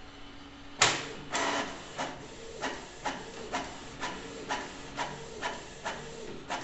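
Canon inkjet printer printing a black-and-white page: after a brief lull, a sharp clack about a second in, then the print-head carriage shuttling back and forth with a click about twice a second over a steady motor whirr.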